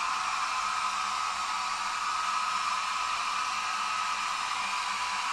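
Hand-held hair dryer running steadily: a rush of air with a constant whine, blowing across wet poured paint to spread it.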